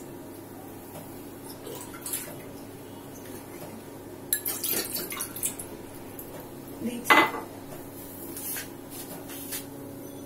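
Clinks and knocks of glass and kitchenware being handled around an aluminium pan holding water, the loudest a sharp knock about seven seconds in, over a steady low hum.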